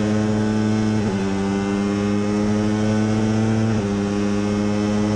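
Onboard sound of a J-GP3 racing motorcycle's 250 cc single-cylinder four-stroke engine at high revs under hard acceleration, shifting up twice, about a second in and again near four seconds in, each shift dropping the pitch before it climbs again.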